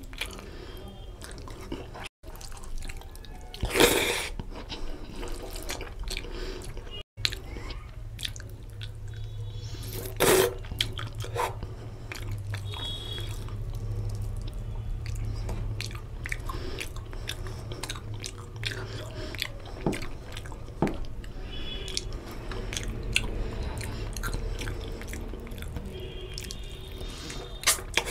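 Close-miked eating by hand: wet chewing and lip smacking of chicken curry and rice, with squelching and sticky clicks as fingers mix rice into the oily gravy, and a few louder smacks.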